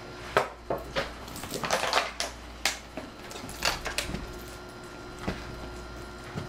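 Plastic water bottle crinkling and clacking as a puppy grabs it in its mouth and carries it: a string of sharp, irregular crackles and knocks, thickest about two seconds in.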